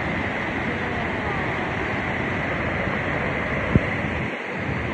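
Steady roar of rushing water from a waterfall in heavy rain, with one sharp click a little before the end.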